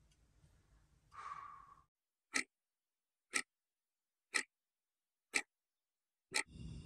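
Clock-ticking sound effect: five sharp ticks, one each second, against dead silence.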